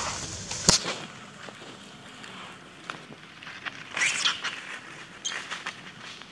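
Dry fallen leaves rustling and crackling as macaques shift about on the leaf litter, with one sharp click under a second in and scratchy bursts about four and five seconds in.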